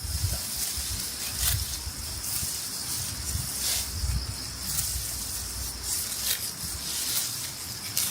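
Dry rice stalks and grain heads rustling and crackling as they are handled, with several short crisp rustles among a steady hiss.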